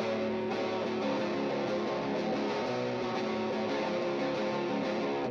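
Amplified electric guitar strumming sustained chords, then cutting off suddenly at the end.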